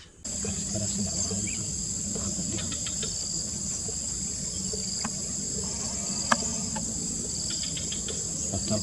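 Steady, high-pitched chorus of insects droning in tropical forest, with a single sharp click a little past six seconds in.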